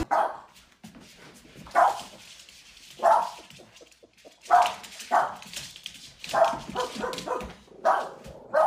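Young Boston terrier barking, about nine or ten short, sharp barks a second or less apart, some coming in quick pairs.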